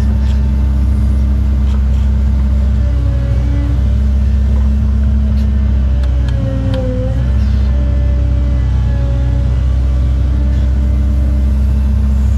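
Cat 309 excavator's diesel engine and hydraulics running steadily, heard from inside the cab while it digs and dumps bucketloads of dirt into a truck. Near the middle the whine dips in pitch for a moment as the bucket digs in.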